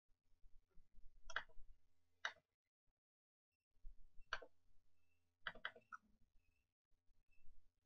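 Faint computer mouse clicks, about six in all: single clicks spaced a second or two apart, with a quick run of three about five and a half seconds in.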